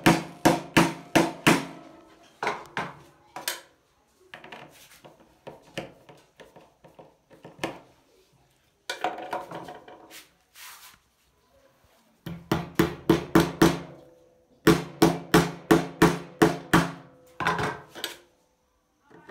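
Hammer tapping a fitting into the wooden table top of an industrial sewing machine stand, in runs of quick blows several a second; the blows are lighter in the middle and heavier again near the end.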